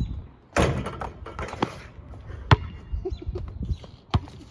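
Basketball bouncing on hard ground: a few separate sharp bounces, the loudest about two and a half seconds in, with a noisy rustling burst near the start.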